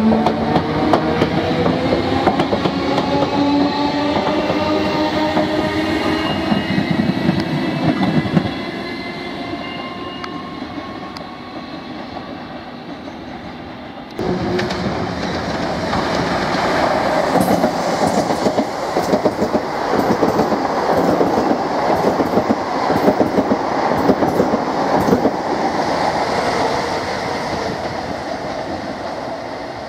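Electric multiple unit pulling away, its traction motors whining and rising in pitch, then fading. About halfway the sound jumps suddenly to a second electric train passing close, its wheels clattering over the rail joints.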